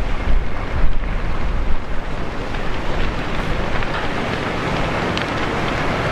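Wind rushing and buffeting the microphone: a steady noise with a deep rumble underneath.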